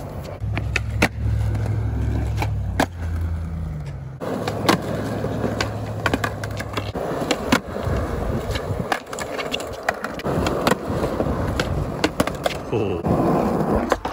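Skateboard wheels rolling on concrete with a low rumble, broken by many sharp clacks of boards popping, landing and knocking against a concrete ledge.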